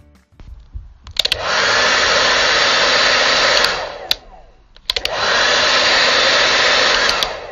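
A household electric motor appliance blowing with a loud, steady rushing noise, switched on twice. Each time it starts with a click and spins up, runs for about two and a half seconds, then clicks off and winds down.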